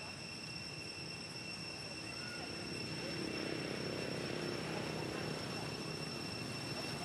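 Distant engine rumble that swells about three seconds in, over a steady high-pitched whine and a few faint chirps.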